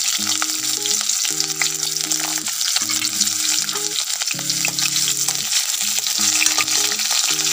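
Sliced onions frying in hot oil in a karahi, a steady, dense crackling sizzle, with a spatula stirring them near the end.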